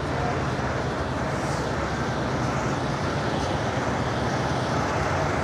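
A large engine running steadily with a low, even hum, under a wash of traffic noise.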